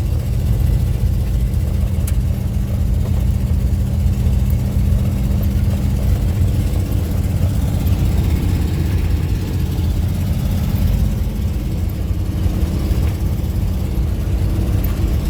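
Steady road and engine rumble heard inside a moving car's cabin, with a constant low drone.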